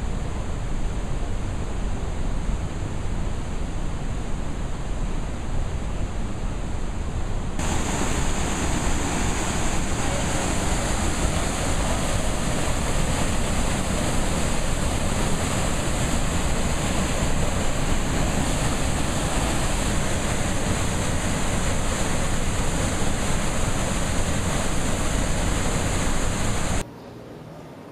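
Radovna River whitewater rushing over rapids and small waterfalls, a steady loud rush. About eight seconds in it becomes brighter and hissier, and it cuts off suddenly near the end.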